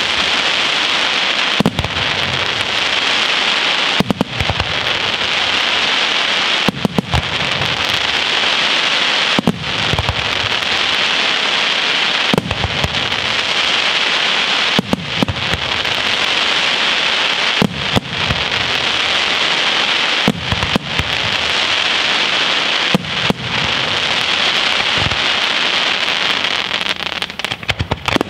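Aerial fireworks display: a continuous dense crackle, with a loud shell burst about every two and a half seconds.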